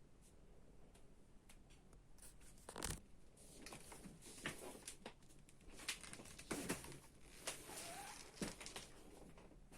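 Faint handling sounds: scattered clicks and rustling scrapes, one sharper knock about three seconds in.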